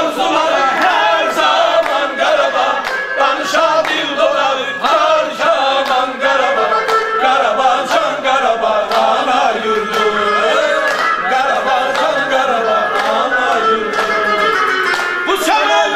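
A group of voices singing together, several pitches weaving over one another.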